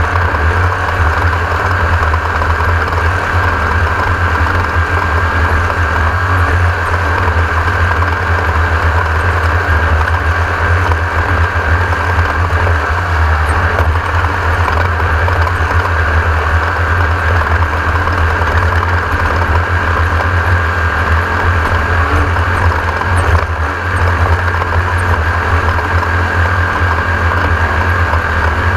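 Class 1600 off-road race buggy's air-cooled 1600 cc VW engine running steadily, heard from on board as a loud, unbroken low rumble.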